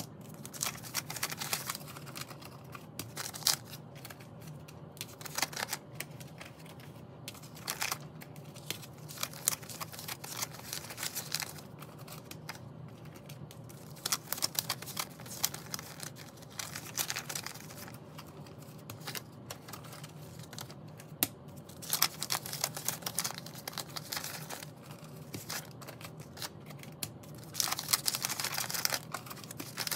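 Paper banknotes rustling and crinkling as they are handled, unfolded and flattened, in irregular quick bursts of crisp paper sounds, busiest near the end.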